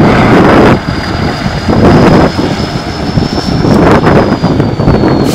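Tatra 815 trial truck's diesel engine working hard under load on a steep muddy climb, revving in surges: strongest at the start, then rising again twice. A thin high whine runs over it, rising slowly and falling away near the end.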